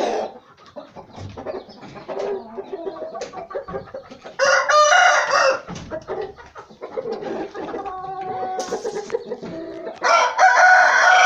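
Aseel game roosters crowing: one crow about four and a half seconds in and another near the end, each about a second long, with quieter calls between.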